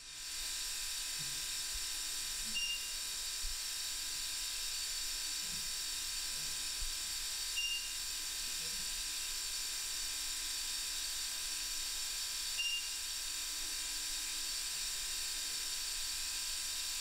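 Steady, even hiss, with a short high beep about every five seconds.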